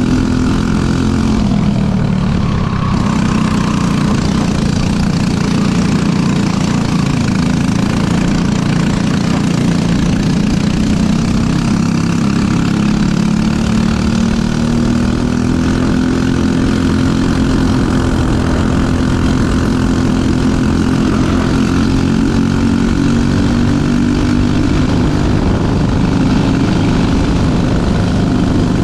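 Briggs & Stratton LO206 single-cylinder four-stroke kart engine running at racing speed, heard from onboard the kart. Its pitch drops about two seconds in, then climbs slowly for some twenty seconds with smaller rises and falls.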